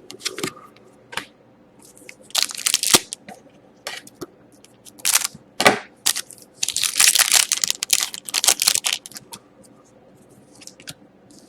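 Crinkling and tearing of a trading-card pack wrapper, with cards being handled, in several loud bursts: about two seconds in, past the middle, and a longer stretch near the end.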